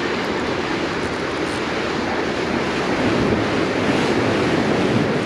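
Rough surf breaking and washing over jetty rocks, a steady rushing that swells a little about three seconds in, with wind buffeting the microphone.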